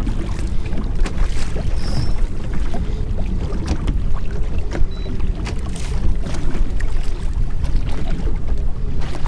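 Steady low rumble of wind on the microphone and water moving along a slowly trolling boat, with a few light clicks.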